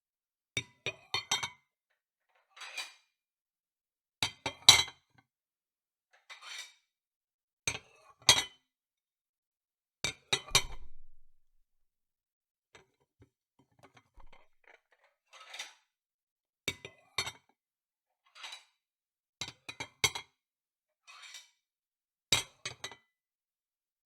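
Dishes being handled and stacked: repeated sharp clinks of ceramic and glass knocking together, in small clusters with pauses between, and a brief scrape about ten seconds in.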